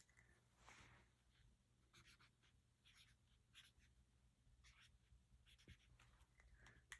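Very faint short scratching strokes of a Sharpie marker writing a name on the label of a pair of riding breeches.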